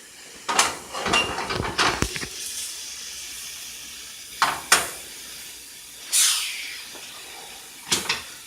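Clatter and knocks of a pan and utensils, then about six seconds in a loud burst of hissing that starts high and fades over a second, as the sliced mushrooms go into hot oil in a frying pan.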